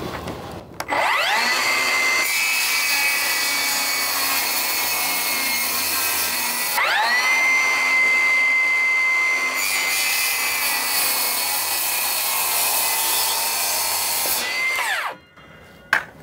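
Circular saw cutting quarter-inch plywood underlayment, its blade set just deep enough to pass through the sheet. The motor whines up to speed about a second in, lets off and spins up again about seven seconds in, and runs down near the end.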